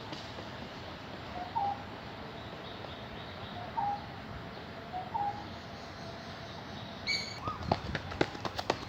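A bird calling over a steady background hiss: a short two-note call repeated every second or two. Near the end come a brief higher whistled note and a run of light, sharp taps.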